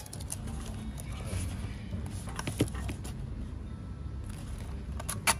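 Gloved hands handling a Fujica Auto 7 Date compact film camera and threading its wrist strap: soft rustling with scattered light clicks, and two sharp clicks close together near the end.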